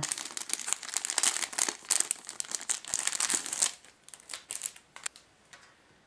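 Clear plastic wrapping crinkling and crackling as a metal motherboard I/O shield is unwrapped and handled, dense for about three and a half seconds, then a few fainter scattered clicks and taps.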